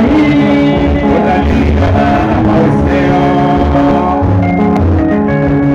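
Live band playing loudly: electric guitar and bass guitar over a drum kit, in a steady groove with sustained guitar notes.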